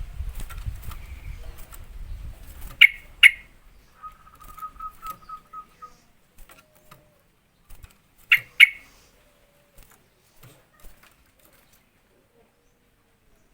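Yellow-vented bulbul (trucukan) calling: a sharp double note about three seconds in and another pair around eight seconds. Between them comes a faint, quick run of repeated notes.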